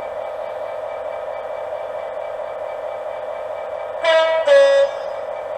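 DCC sound decoder in a model Class 66 diesel locomotive, playing the engine idling steadily. About four seconds in, the two-tone horn sounds: a short high note followed by a slightly longer lower one.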